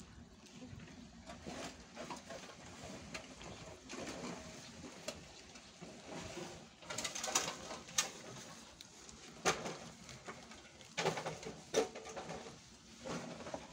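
Cats eating from a plastic bag on a tiled floor, with the bag crinkling and clicking sharply several times, mostly in the second half, over a low cooing in the background.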